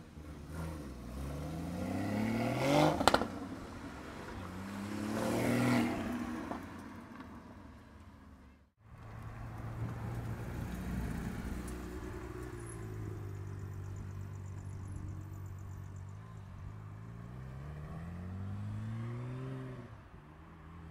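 Porsche Cayman GT4's flat-six accelerating away, revs rising twice through a gear change with a sharp crack at the first shift. After a cut, a Porsche 911's flat-six pulls away, its revs climbing again in two pulls.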